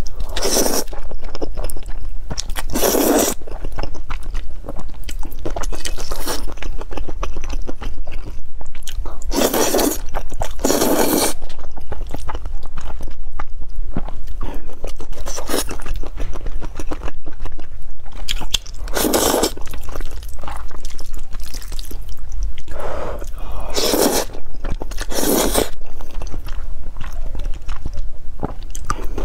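Close-miked eating sounds: noodles slurped loudly about seven times, each slurp under a second, with wet chewing of noodles and shrimp in between, over a steady low hum.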